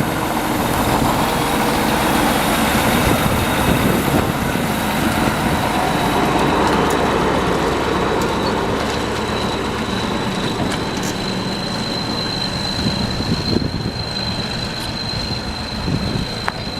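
T-150K tractor's diesel engine running steadily under load while hauling a loaded firewood trailer over swampy ground. A thin, steady high whine sits above it and grows clearer in the second half.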